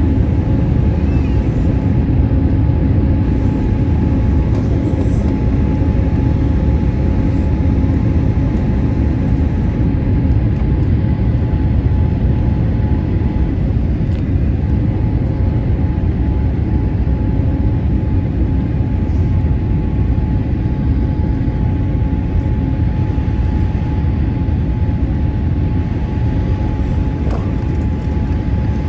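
Steady cabin noise of a jet airliner in flight on its descent to land: rushing air and engine noise over a deep rumble, with a constant engine hum.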